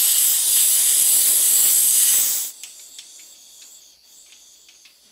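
Compressed air hissing hard out of the tank drain valve of an old belt-driven Airmaster air compressor as the valve is worked by hand, cutting off sharply about halfway. A faint fading hiss and a few small metal clicks follow as the valve is turned.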